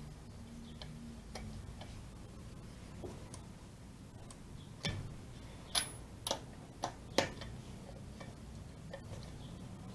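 Irregular light metallic clicks and clinks of tools and parts being handled, with a few sharper clinks bunched together around the middle.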